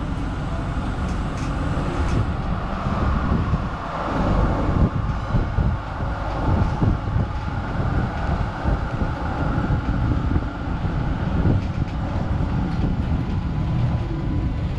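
Melbourne Z-class tram running along its tracks: a steady rumble of wheels on rails that turns rougher, with frequent irregular knocks and jolts, from about four seconds in.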